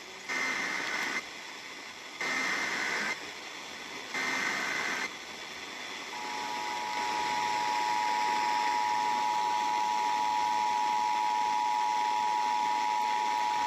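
Emergency Alert System signal over steady radio hiss: three short bursts of warbling SAME header data, then, about six seconds in, the steady two-tone attention signal (853 and 960 Hz) announcing a severe thunderstorm warning.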